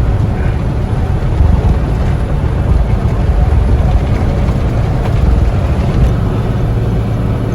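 Steady low rumble of a semi truck's diesel engine and road noise, heard from inside the cab while driving.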